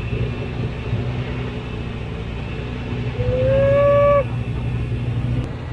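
Jeep Cherokee XJ engine running steadily under load as it climbs a steep concrete slab. A little over three seconds in, a loud high held tone sounds for about a second, rising slightly at first.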